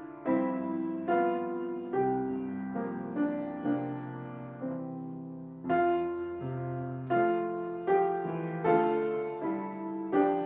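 Slow piano music: notes and chords struck about once a second and left to ring and fade.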